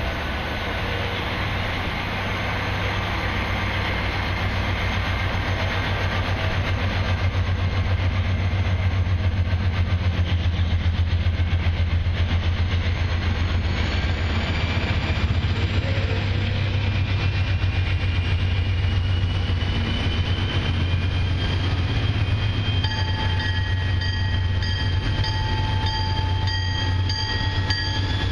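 Canadian Pacific freight train approaching, led by diesel locomotives (an EMD SD40-2 and a GE AC4400CW) giving a steady, loud low engine rumble with a faint rising whine above it. Near the end a high, evenly repeating ringing joins in as the lead locomotive arrives.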